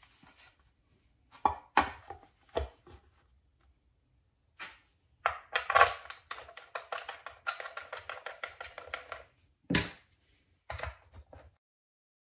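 Hard plastic knocks, clicks and scraping as the plastic top cover of a Hi-Blow air pump is fitted over its new filter and pressed into place, with a longer stretch of rapid rattling and scraping in the middle and a few sharp knocks near the end.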